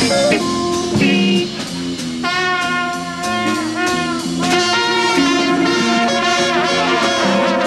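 Big-band jazz: a brass section of trumpets and trombones playing together over drums. About two seconds in, a dense run of high trumpet notes comes in, with several bent and falling notes.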